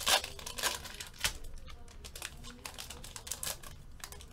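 Foil-lined trading-card pack being torn open by hand and its wrapper crinkling as the cards are pulled out: a run of irregular crackles and clicks, loudest at the start.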